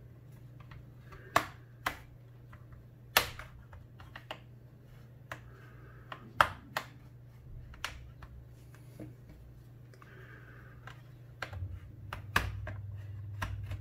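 Sharp, irregularly spaced plastic clicks and snaps as plastic pry tools work along the seam of an MSI GE75 laptop's bottom panel, its retaining clips popping loose.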